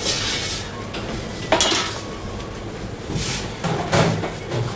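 Kitchen clatter of pans and metal utensils: a few sharp knocks and clinks, the loudest about a second and a half in and near the end, with short scraping sounds between them.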